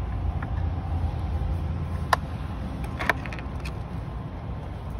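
A few light clicks as a retaining clip is pushed through a dust extractor's handle mount: a sharp one about two seconds in, then a small cluster about a second later. Under them runs a steady low rumble.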